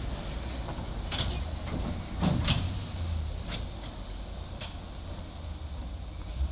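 Hino truck coming down a rough, rutted dirt slope: a steady low engine rumble with several sharp metallic clanks and knocks as the truck jolts over the ruts. The loudest clank comes a little over two seconds in.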